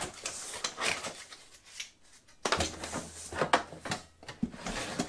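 Parts and packing of a mitre saw stand being handled in their cardboard box: irregular rustling, scraping and light knocks, with a short lull about two seconds in.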